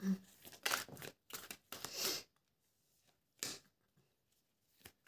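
Tarot cards shuffled by hand: a run of quick papery swishes and slaps for about two seconds, then a single swish a little later.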